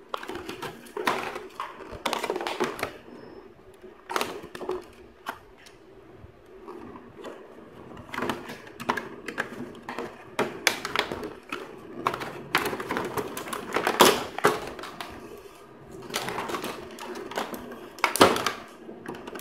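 Stiff clear plastic blister packaging crackling and clicking irregularly as a headset is worked out of it by hand, with a louder crackle about two-thirds of the way through.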